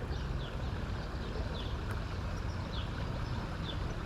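Steady low rushing outdoor background noise, with a bird's short, high chirps that fall in pitch, repeating about once a second.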